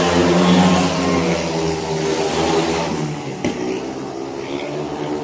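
Speedway motorcycles' 500 cc single-cylinder engines running at race speed. They are loudest as a rider sweeps through the near bend and fade as the bikes head away down the straight. A sharp click comes about three and a half seconds in.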